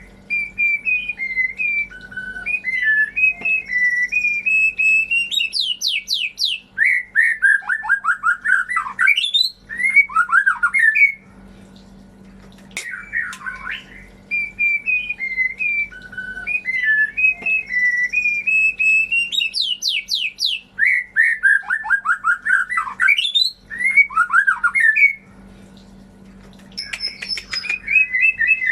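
White-rumped shama song played as a lure recording: a long, varied run of whistled phrases, trills and quick falling notes. The same sequence loops about every thirteen seconds, with brief pauses between repeats. A faint steady low hum runs underneath.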